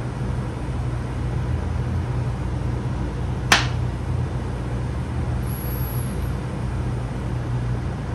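Steady low rumble of background noise, with one sharp click about three and a half seconds in.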